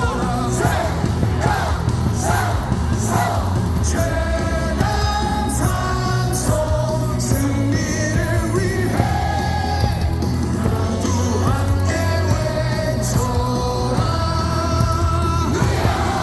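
A stadium crowd of baseball fans singing a team cheer song together over loud amplified music with a steady beat, with shouts mixed into the singing.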